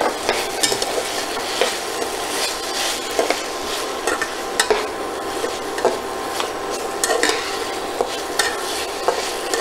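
Metal spatula stirring and tossing fried idli pieces in a thick sauce in a metal kadai, scraping and knocking against the pan at an irregular pace over a steady sizzle.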